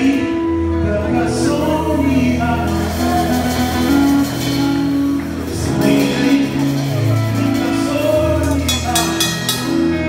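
A live church band playing a gospel song, with a drum kit and cymbals, keyboard and a singing voice. A quick run of cymbal strokes comes near the end.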